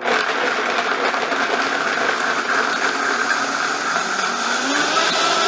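High-speed blender running, blending whole cashews in water with the sauce ingredients into a smooth cream. It starts suddenly and runs steadily, its pitch rising a little about four seconds in.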